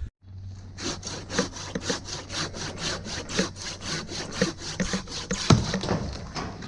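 Climber's pruning handsaw cutting through an ash limb with steady, rhythmic back-and-forth strokes, a few per second.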